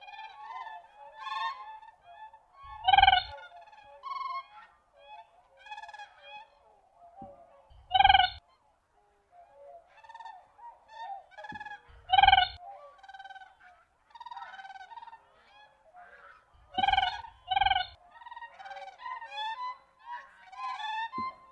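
A flock of Siberian cranes calling: a running chorus of clear, high honking calls that overlap, with a louder single call every four to five seconds, one of them doubled, each with a low thump under it.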